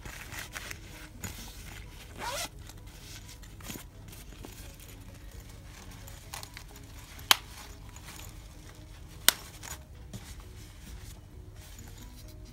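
Zipper on a small fabric mesh pouch being pulled along in a few quick strokes, with the rustle of the padded cloth organizer pouch being handled. Two sharp clicks stand out about seven and nine seconds in.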